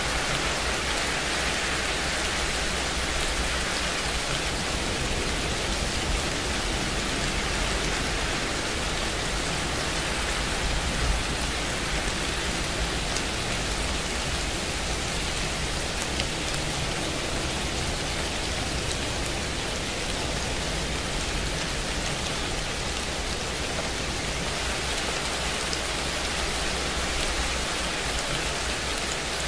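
Steady rain falling on a surface, an even wash of drops with the odd louder drop.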